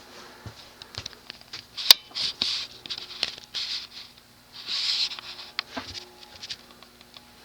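Repeated short bursts of scratchy rustling and several sharp clicks, one very sharp about two seconds in, over a faint steady low hum.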